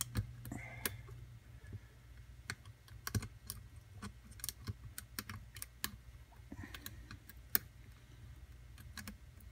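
Lock pick and tension wrench working the pins inside a pin-tumbler lock: small, irregular metallic clicks and taps as the pins are lifted and set one by one.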